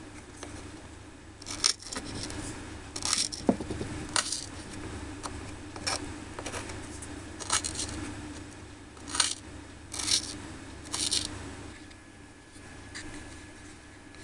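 A tiny knife chopping on a miniature wooden cutting board: sharp, irregular taps of the blade striking the wood, with light scraping between them, stopping a few seconds before the end.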